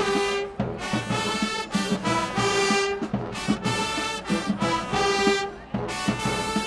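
High school marching band's brass section playing loud, punchy phrases with brief stops between them, drums beating underneath.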